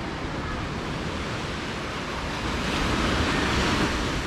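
Sea surf washing onto a sandy beach, a steady hiss that swells louder about two-thirds of the way through, with wind rumbling on the microphone.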